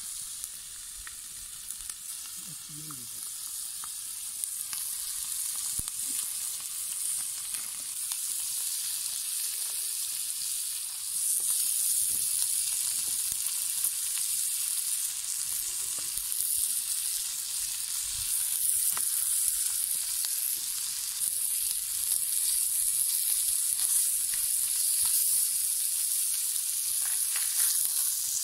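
Chicken pieces sizzling on a hot stone slab over a wood fire. The steady hiss grows louder partway through, with occasional light clicks as metal tongs turn the meat.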